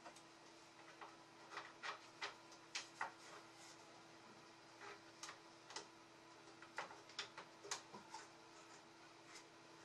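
Faint, irregular light clicks and taps of wooden chair parts (bent-wood legs and seat ring) being handled and knocked against each other, over a steady faint hum.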